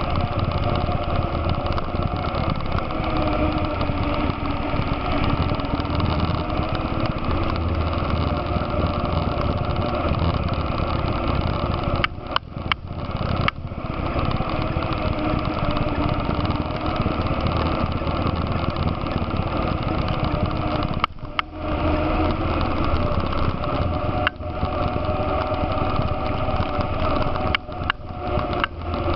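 ATV engine running steadily while riding, heard from on board the quad, its pitch drifting slightly up and down. The sound briefly cuts out several times in the second half.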